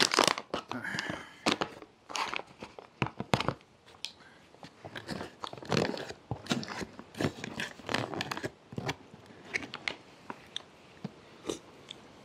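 Freeze-dried meal pouch crinkling as its zip seal is pulled open, then a spoon stirring the thick rehydrated meal inside the pouch, in a string of irregular crinkles and clicks that thin out near the end.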